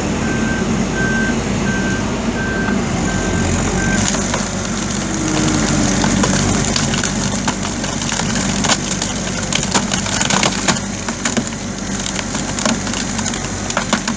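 CAT 450E backhoe's diesel engine running steadily, its reversing alarm beeping for about the first four seconds. After that, wood cracks and snaps again and again as the hydraulic screw-cone splitter bores into the wood and splits it.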